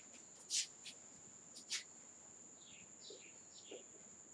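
Whiteboard marker handled with a few sharp clicks, then short squeaky strokes of the marker writing on a whiteboard near the end, over a faint steady high-pitched whine.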